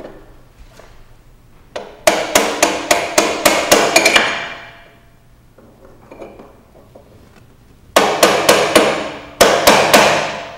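A hammer striking a metal drift against a motorcycle rear shock's preload lock ring to tighten it, so the preload adjuster can't back off. Two quick runs of ringing metal taps, about five a second: the first about two seconds in, the second near the end.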